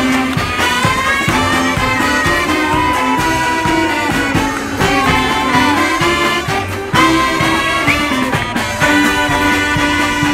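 Mummers string band playing a tune led by its saxophone section, many saxophones sounding together over a steady beat.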